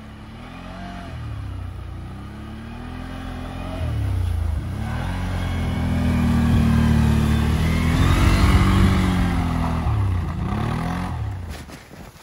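CFMOTO ATV fitted with Camso track systems, its engine revving up and down in repeated surges as it climbs and turns through snow. It grows louder as it comes close and fades away near the end.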